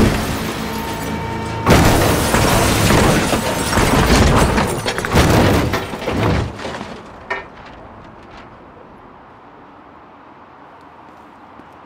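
A loud crash with shattering and breaking debris over music, starting suddenly about two seconds in and dying away after about six seconds. One sharp knock follows, then low steady background.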